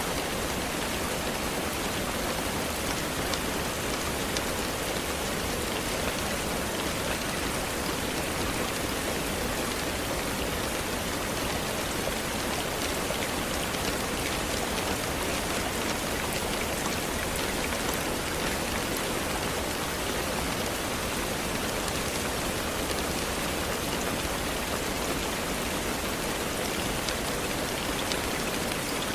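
Steady rain falling: an even hiss of rainfall with scattered small drop ticks, holding level without change.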